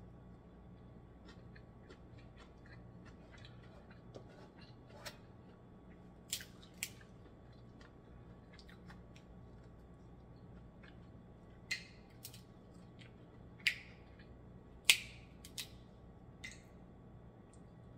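Snow crab leg shells being snapped and cracked apart by hand: about ten sharp, separate cracks spread over the clip, the loudest near the end.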